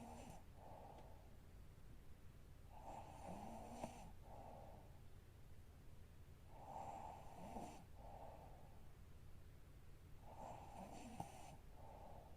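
A woman snoring faintly in her sleep, in a slow, even rhythm of one two-part snoring breath about every four seconds.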